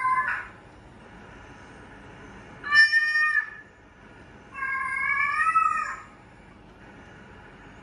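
Domestic cat meowing: the end of one call at the start, a short meow about three seconds in, and a longer, drawn-out meow at about five seconds.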